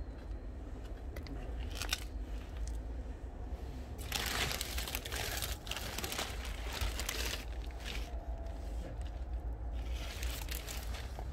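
Thin plastic sheeting crinkling and rustling as it is pushed aside and lifted, loudest for a few seconds starting about four seconds in and again near the end, over a steady low rumble.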